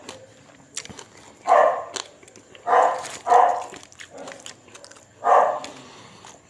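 A dog barking four times, in short separate barks spaced a second or two apart.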